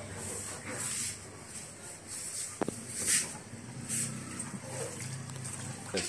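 Clothes being dropped by the handful into a top-loading washing machine tub half full of soapy water: a series of short soft swishes of fabric and water, with one sharp knock near the middle.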